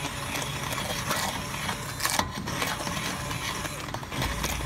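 Hand-held immersion blender running in a pot of squash soup, blending it to a purée, with a couple of sharp knocks near the start and about two seconds in.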